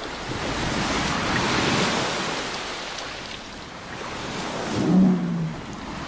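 Ocean waves washing in and drawing back in two swells, the second the louder, with a brief low tone at its peak.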